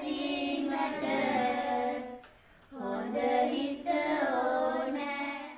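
A high voice singing a wordless, drawn-out melody in two long phrases, with a brief break a little past two seconds in.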